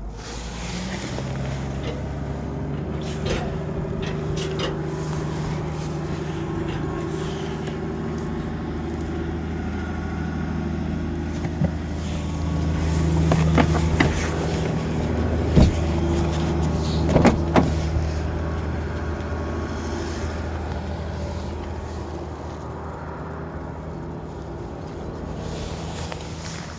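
A vehicle engine running steadily, growing somewhat louder through the middle. A few sharp clicks or knocks come between about twelve and eighteen seconds in.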